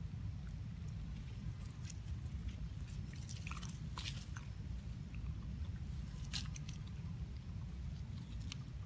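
Faint clicks and rustles from young long-tailed macaques eating and moving in grass and dry leaves, bunched around four seconds in and again just past six, over a steady low rumble.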